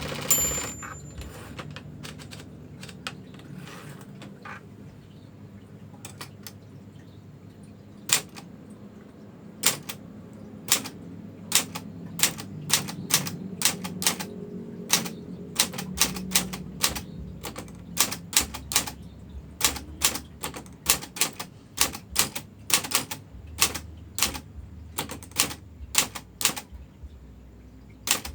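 Manual typewriter being typed on: a few scattered key strikes in the first seconds, then steady typing from about eight seconds in that quickens to two or three strikes a second.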